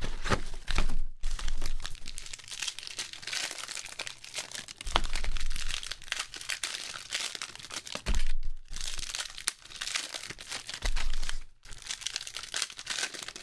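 Foil wrappers of Panini Prizm basketball card packs crinkling and tearing as they are handled and opened, with a few dull bumps from handling about 5, 8 and 11 seconds in.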